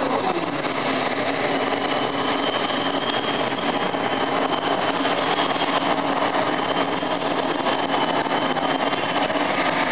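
Multi-engine modified pulling tractor running at full power as it drags the sled, a loud steady engine noise with a high whine above it.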